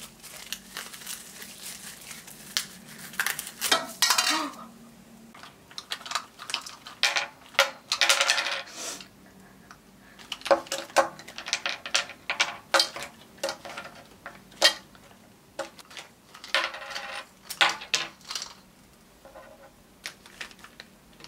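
Flat white chocolate wafers clinking against a small glass cup and spilling onto a tabletop, in a run of quick light clicks and clatters, with plastic crinkling.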